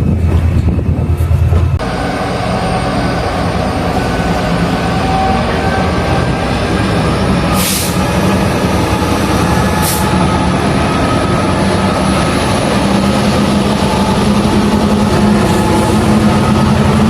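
Locomotive engines running steadily. A deep low note drops away about two seconds in, and there are two short hisses about eight and ten seconds in.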